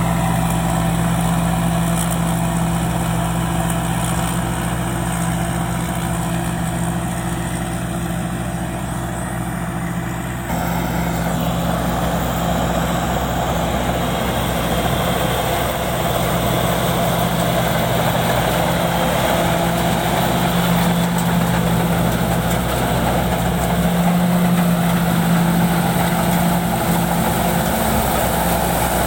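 Rice combine harvester running steadily while harvesting, engine hum under a broad mechanical noise. The sound shifts abruptly about ten seconds in.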